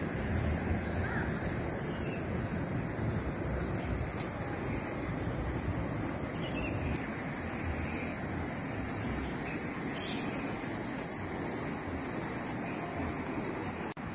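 Steady, high-pitched drone of forest insects. It gets louder about halfway through and cuts off abruptly just before the end, over a low, even background rush.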